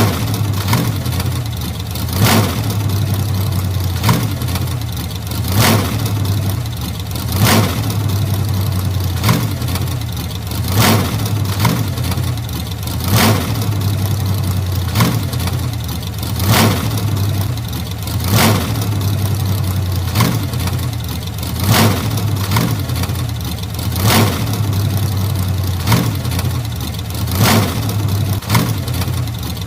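Old car engine idling with a steady low hum, broken by a sharp pop about every second and a half to two seconds.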